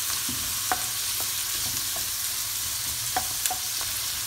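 Diced onion and garlic sizzling steadily in olive oil in a stainless steel pan, stirred with a wooden spoon that knocks against the pan several times.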